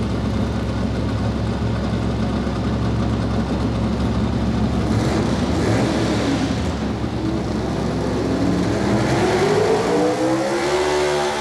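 Super Stock four-wheel-drive pulling truck's engine running hard, with a steady note that rises in pitch near the end.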